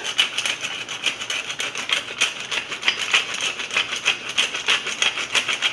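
Wooden pepper mill grinding black peppercorns: a fast, continuous run of dry crackling clicks from the grinder.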